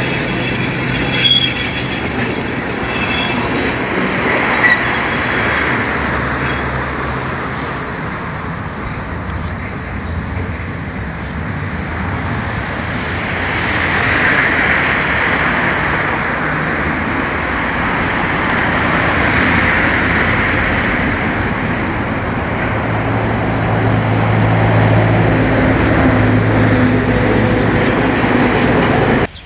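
Vintage wooden-bodied electric tram running on curved track, its steel wheels squealing against the rails, with clattering over the rail joints. The squeal is strongest around the middle, and a low steady hum comes in near the start and again near the end.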